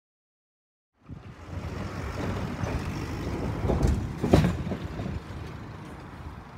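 After a second of silence, outdoor noise begins: a low rumble of passing road traffic and wind on the microphone, with a louder swell and a short sharp peak about four seconds in.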